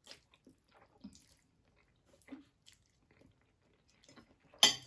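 Quiet eating sounds from someone eating noodles: faint chewing and small scattered clicks, with one sharp knock near the end.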